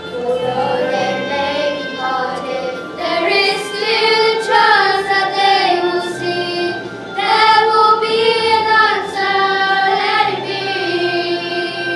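Children's voices singing a song together over an instrumental accompaniment.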